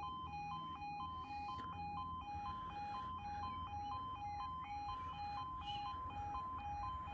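UK level crossing audible warning alarm sounding steadily: two tones alternating rapidly and evenly, the warning that the barriers are down for an approaching train.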